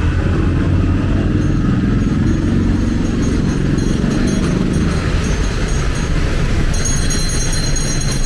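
A motor vehicle's engine running close by, a loud low drone. Bright high jingling tones come in near the end.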